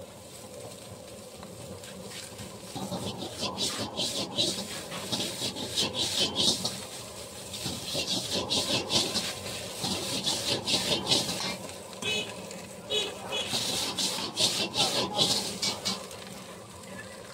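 Metal ladle scraping and clanking against an iron wok as fried rice is stir-fried and tossed, in quick, irregular strokes that grow busier and louder about three seconds in.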